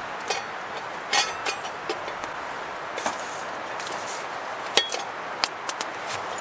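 Campfire being tended by a gloved hand, with wood and the metal stew pot moved: scattered sharp clicks and knocks, several with a brief metallic ring, over a steady hiss.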